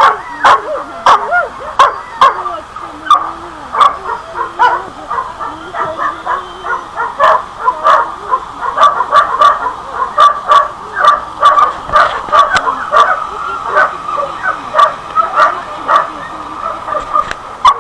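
Dogs barking and yipping in quick succession, a few barks a second, without a break.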